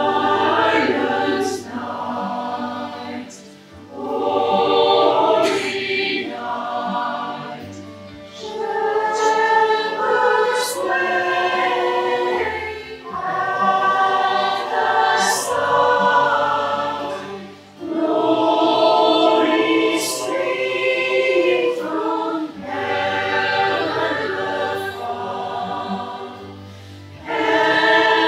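Choir singing in unison and harmony, phrase after phrase of about four seconds each, with brief dips for breath between phrases.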